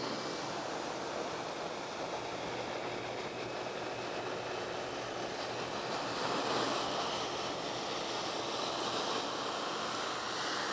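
Wet/dry shop vacuum running, its hose nozzle sucking standing water up off the bottom of a shallow tray in a steady rush of air and water. It gets a little louder from about six seconds in, as the nozzle is pressed down onto the bottom.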